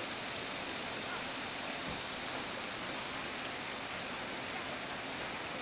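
Shallow mountain stream running over a rocky bed: a steady hiss of flowing water.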